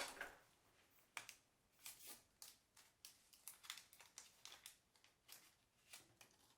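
Faint, irregular scratching and rubbing: old glue being cleaned off a tiny camera viewing lens with an alcohol wipe.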